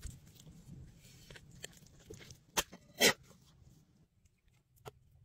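Raw chicken breast being handled and cut on a wooden board: small wet, sticky sounds and light knife taps, with two loud knocks about two and a half and three seconds in.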